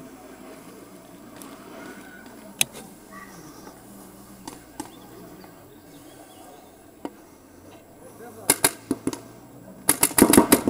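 Paintball markers firing: a few scattered single pops, then near the end two rapid strings of shots, the second a fast, dense volley.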